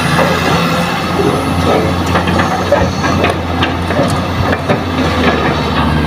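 Kobelco hydraulic excavator dumping a bucket of earth into a steel dump-truck bed, over the steady drone of heavy diesel engines. Clods and stones clatter into the bed from about two to five seconds in.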